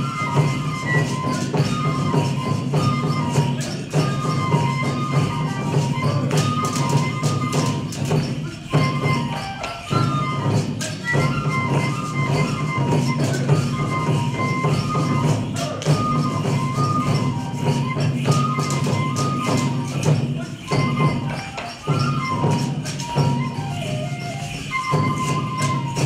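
Japanese folk dance music for the koma odori horse dance: a high flute melody moving in short steps over steady beats of waist-slung drums, with constant jingling percussion.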